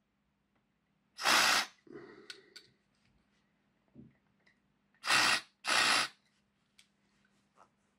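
Aerosol contact cleaner sprayed through its thin straw into the brush shafts of a model locomotive motor: three short hisses of about half a second each, the last two close together, with a few light clicks between.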